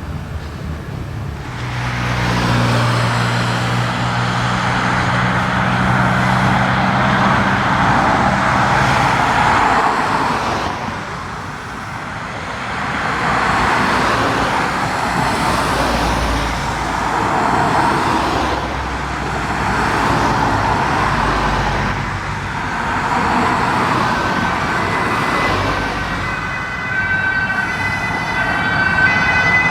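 Emergency-vehicle sirens sounding loudly, swelling and fading every few seconds, over the hum of a heavy vehicle's engine for the first several seconds. Near the end a single siren tone comes through clearly and steadily.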